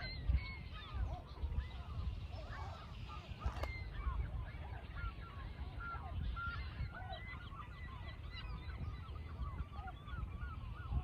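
A flock of birds calling: many short, overlapping calls that rise and fall in pitch, over a steady low rumble, with one sharp click about three and a half seconds in.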